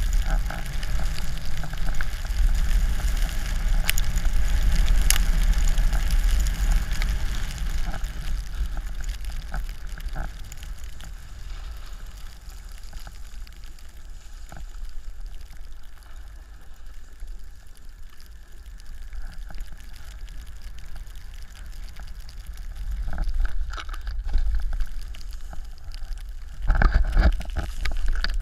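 Snowboard sliding over snow, with wind rumbling on the GoPro Hero3's microphone: a steady hiss and scrape of the board on the snow. It quietens in the middle as the rider slows almost to a stop, then grows loud again near the end as he picks up speed.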